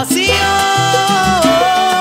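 Salsa music: a long held note carries over bass and band, dipping slightly in pitch about a second and a half in.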